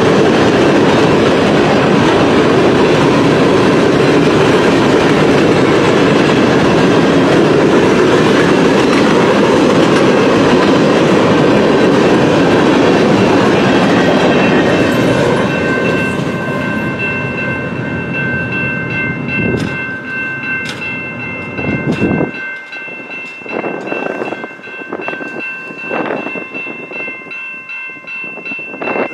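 CN mixed freight train's cars rolling past with a loud, steady rumble and clickety-clack, which fades away over the second half as the train leaves. Once the rumble fades, the grade-crossing warning bells are heard ringing steadily, with scattered wheel clicks from the receding train.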